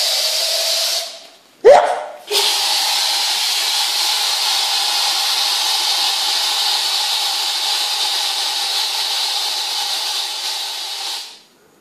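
Aerosol spray can hissing in two sprays: the first stops about a second in, and after a short sharp sound a second, steady spray runs for about nine seconds before cutting off near the end.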